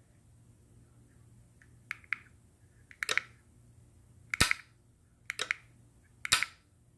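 A 1/4-inch 12-volt DC stainless electric solenoid valve clicking open and shut as it is switched on and off by a Fimco wireless remote: five sharp clicks, some doubled, about one a second, starting about two seconds in.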